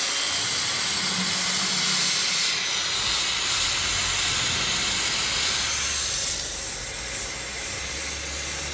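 Plasma cutting torch cutting steel plate: a loud, steady hiss of the arc and its air jet. About six and a half seconds in the hiss drops in pitch and a low rumble comes up.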